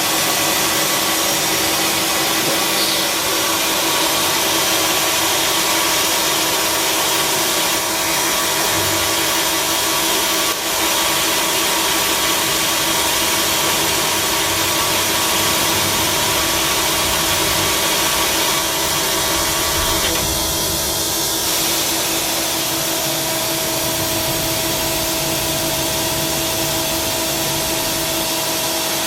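Tsugami SS32 Swiss-type sliding-headstock CNC automatic lathe running, a steady machine hum and hiss with a constant whine; the sound changes about two-thirds of the way through as a higher hiss drops away and a new steady tone comes in.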